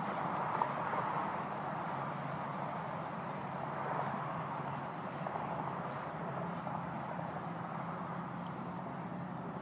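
Steady outdoor background rush, like distant traffic, with a low hum underneath and a faint, steady high-pitched whine.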